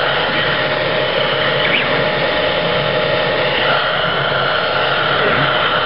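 Handheld electric hot-air blower running steadily, a constant rush of air with a steady motor whine, as it heats carbon fiber vinyl wrap film to make it pliable for squeegeeing.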